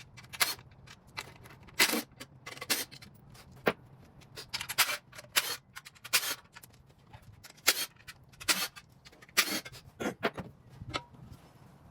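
Metal hand tools clinking and scraping in short, irregular clicks and clatters, as tools are handled and searched through while working on the engine.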